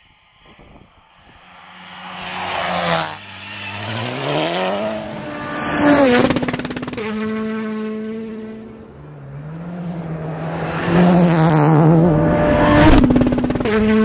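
Rally cars driven flat out on a stage: an engine note grows louder and rises in pitch, then drops sharply as the car passes about 6 s in. A second car does the same near the end.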